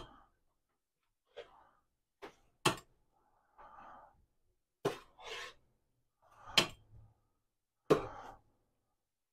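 Cookware knocking and clinking, about seven sharp knocks at uneven intervals with short scrapes between, as cooked potatoes and carrots are lifted out of a roasting pan into another pot.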